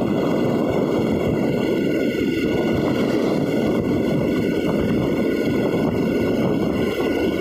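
Steady rush of wind on the microphone mixed with engine and tyre noise from riding along a road at speed.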